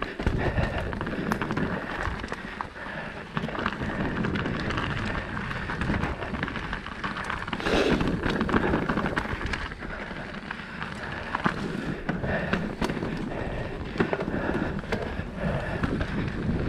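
Mountain bike riding down a dirt forest trail, picked up by a camera mounted on the bike: steady rush of tyres on dirt and wind on the microphone, with frequent rattles and knocks from the bike over roots and rocks, louder for a moment about eight seconds in.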